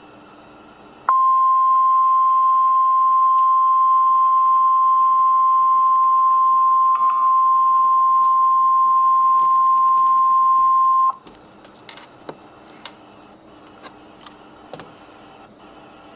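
NOAA Weather Radio's 1050 Hz warning alarm tone: one steady high beep held for about ten seconds, starting about a second in and cutting off sharply. It is the alert that comes before a warning message, here a tornado warning. Faint radio hiss with a few clicks can be heard before and after it.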